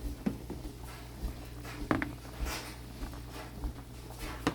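A few light knocks and clinks of kitchen handling over a steady low hum, the sharpest one near the end.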